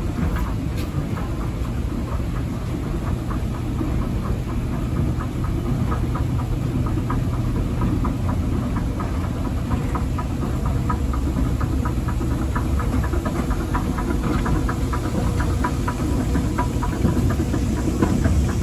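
Original 1960s Montgomery single-file escalator running under a rider: a steady low hum from the drive, with rapid light clicking that grows denser in the second half as the top landing nears.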